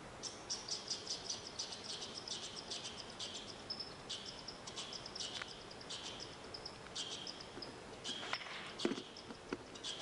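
Small bird chirping high and fast, several short calls a second, with a thin steady whistled note partway through. A few faint cracks near the end.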